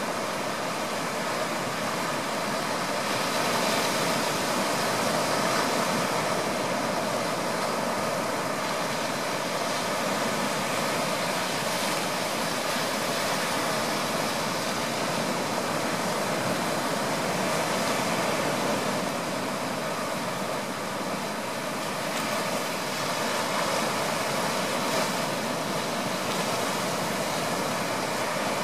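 Small waves washing onto the shore: a steady rushing that swells a little now and then.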